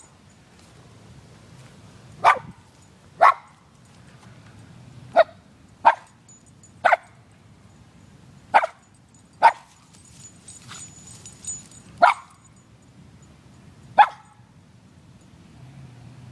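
Shetland sheepdog barking: about ten short, sharp single barks spaced one to two seconds apart, stopping a couple of seconds before the end.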